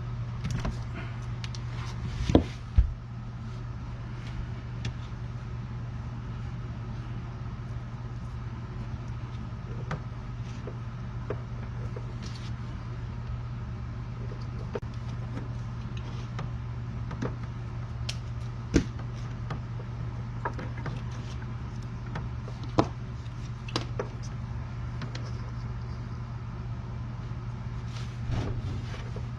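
Scattered clicks and knocks of hands working with wires and small tools over a steady low hum. The loudest are two sharp knocks about two and a half seconds in, with single ones later on.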